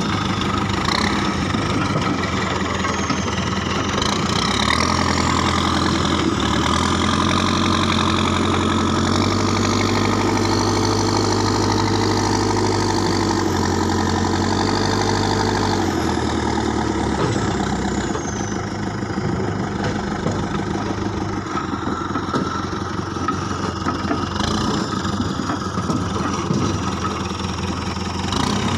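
Terex 740S backhoe loader's diesel engine running steadily. It works harder with a deeper note from about six to sixteen seconds in, then eases back.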